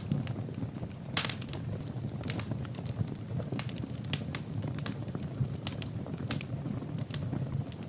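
Wood fire burning in a fireplace: frequent sharp, irregular crackles and pops of the burning logs over a steady low rumble of the flames.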